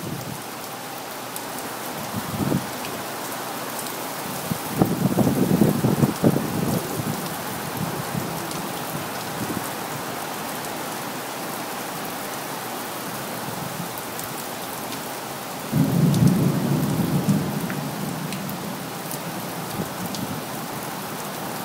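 Heavy, steady downpour hissing throughout, with rolling rumbles of thunder about five seconds in and again near sixteen seconds, and a short one before them.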